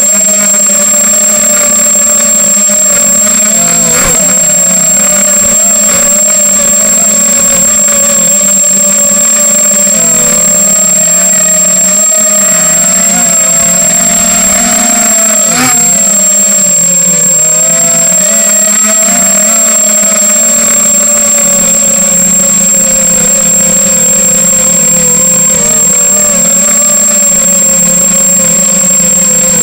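Motors and propellers of an H250 FPV quadcopter in flight: a loud, steady buzzing whine whose pitch wavers slightly as the throttle changes. A constant high-pitched electronic whine sits above it, with a brief click about 4 s in and another about 15 s in.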